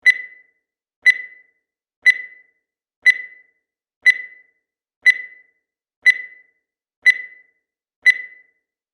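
Digital timer beeping once a second to count off the seconds: nine identical short, high beeps, each starting sharply and dying away quickly.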